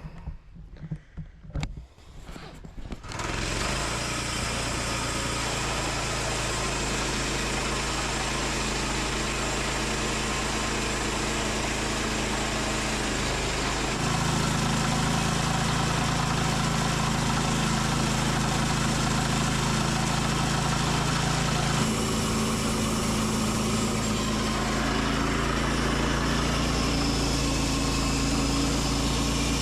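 Woodland Mills HM122 sawmill's gas engine starting about three seconds in after a few knocks, then running steadily. Its note steps up about fourteen seconds in and changes again about eight seconds later, as the mill is brought up to cut.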